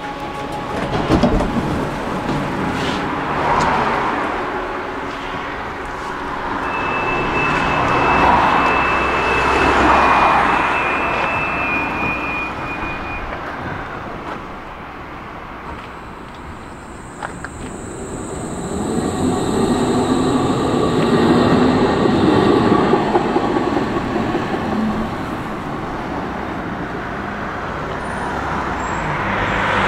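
Electric city tram at a stop and then moving off, with road traffic passing on the street alongside in several swells. A steady high tone sounds for about six seconds in the first half.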